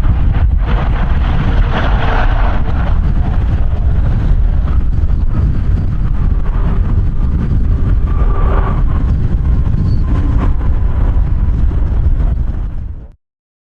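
Strong wind buffeting the microphone, a loud low rumble that cuts off suddenly near the end.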